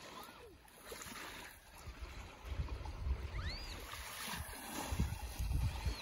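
Sea washing gently at the shore, with wind buffeting the microphone in low gusts that swell about two and a half seconds in and again near the end. A couple of faint high chirps come through about halfway.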